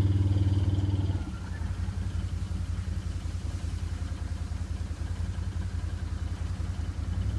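Can-Am ATV engine running, easing off about a second in and then idling steadily.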